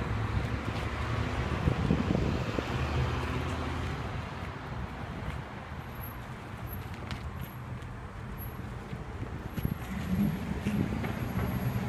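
Street traffic noise, a steady rumble of vehicles on the road that swells and fades as they pass.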